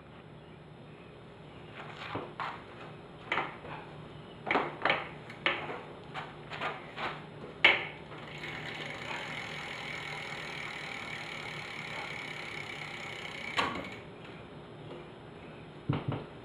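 BMX bike handled with scattered knocks and clatter, then a steady whirring buzz for about five seconds, typical of the rear hub freewheeling, ending with a knock near the end.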